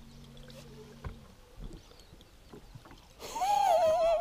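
A steady low hum that stops about a second in, then near the end a loud, drawn-out wavering cry.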